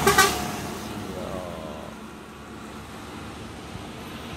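A light truck and a motorbike pass close by: loud at first with a short burst of clatter, then the engine noise falls in pitch and fades over about two seconds, leaving steady distant road traffic.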